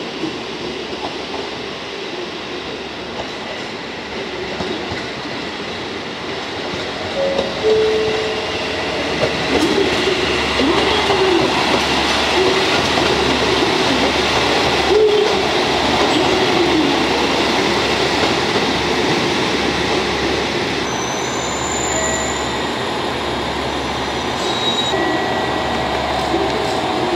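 JR KiHa 185 series diesel railcar train rolling in close past the listener, its diesel engine running with a low hum under the rumble of the wheels on the track. The wheels squeal in short wavering tones through the middle, growing louder as the train draws near.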